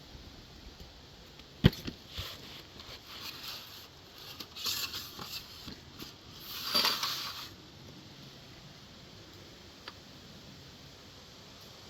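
A single sharp rifle shot from an AR-15 about two seconds in, followed by softer irregular scraping noises and a faint click near the end.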